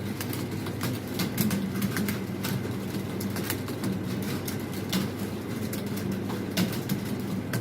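Many computer keyboards being typed on at once, keys clicking irregularly several times a second, over a steady low hum.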